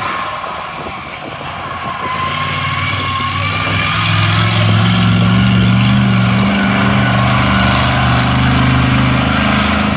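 Monster truck's engine running as it drives across the grass, growing louder as it comes nearer, with a high whine above the engine note and a brief dip about six and a half seconds in.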